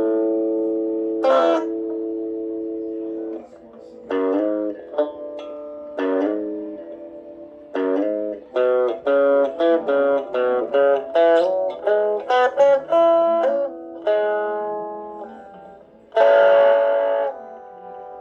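Squier Cyclone electric guitar being played: a strummed chord left to ring for about three seconds, then a run of short picked single notes, and another strummed chord near the end.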